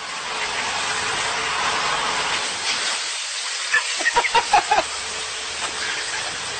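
Wheel loader working against a tall pile of loose material, heard as a steady loud rushing noise. About four seconds in, a quick run of sharp loud sounds comes as the pile collapses onto the machine.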